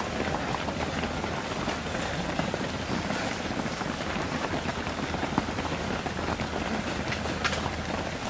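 Footsteps of a big pack of runners in running shoes on a tarmac road: a steady, dense stream of quick, overlapping footfalls with no gaps.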